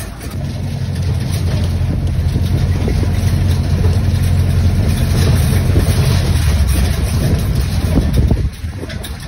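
Wind buffeting the microphone outdoors: a loud, steady low rumble with a rough hiss, easing a little near the end and cutting off suddenly.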